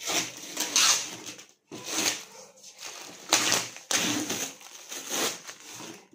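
Brown packing tape being ripped off the top of a cardboard carton in several rasping pulls, mixed with the crackle of the cardboard.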